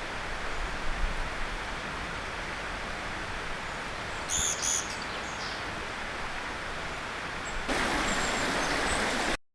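Steady rush of a mountain stream, with a small bird giving two short high calls about halfway through. Near the end the rushing grows louder, then the sound cuts off suddenly.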